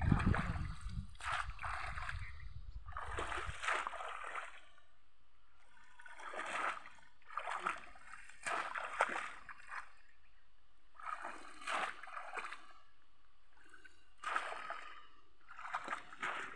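Shallow muddy pond water splashing and sloshing in short, irregular splashes every second or so as a person wades through it with a bamboo fish trap. A low rumble runs under the first few seconds and then stops.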